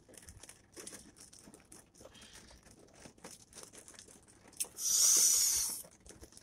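Sipping an iced drink through a straw from a plastic cup: faint sucking and crackling clicks, then a loud breathy hiss lasting about a second, about five seconds in.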